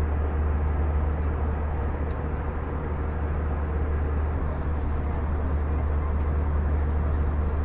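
Steady cabin noise of an Airbus A320 in flight: engines and airflow as an even low rumble with a hiss above it, and a couple of faint clicks.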